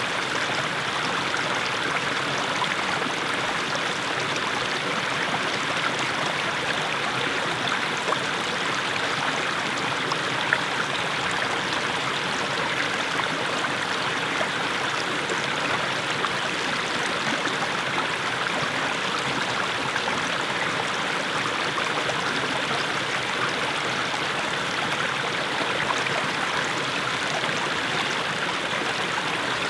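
Small mountain stream babbling steadily over low steps of mossy stones, with a few brief sharper splashes.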